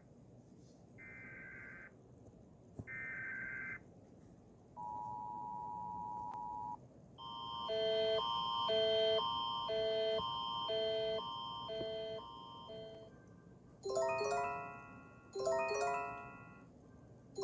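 Emergency Alert System tones: three short buzzy data bursts, then a steady two-tone attention signal held for about two seconds. After it comes a repeating pattern of chime-like alert tones, and near the end quick falling chime runs.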